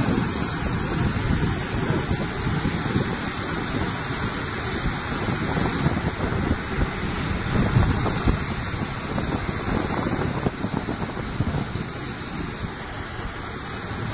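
Steady, dense mechanical rumble of a sand making production line running: a sand making machine crushing stone and belt conveyors carrying the material.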